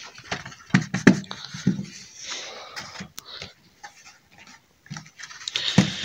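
DVD packaging being handled: a cardboard sleeve and paper art cards rustling, with irregular taps and clicks in the first couple of seconds and softer rustling after.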